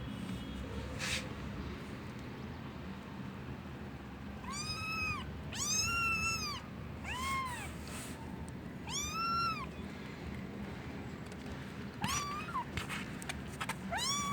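Kittens mewing: about six high-pitched mews, each rising and falling in pitch, spaced a second or two apart after the first few seconds.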